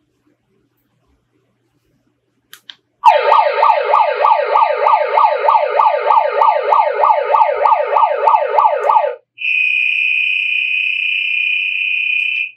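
KNB ER-10-SHB-USBRB megaphone's built-in electronic alarm. After a couple of soft button clicks, its police-siren tone sounds for about six seconds as a fast rising wail repeating about four times a second. It then switches to the whistle tone, one steady high note held for about three seconds.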